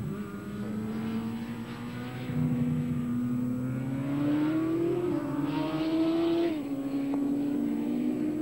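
Suzuki GSX-R750's inline-four engine running hard at racing speed, its pitch climbing and falling with the throttle, with sudden drops in pitch about five and six and a half seconds in.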